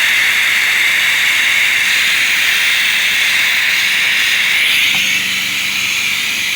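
Compressed air hissing steadily as it is blown under pressure into a zero-turn lawn mower's gas tank to flush out water, gunk and rust. The hiss drops slightly in level about five seconds in.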